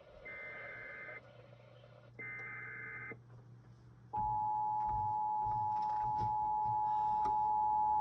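Emergency Alert System broadcast: two short SAME header data bursts, each a harsh warbling screech about a second long, then the steady two-tone EAS attention signal that starts about four seconds in, announcing a new alert.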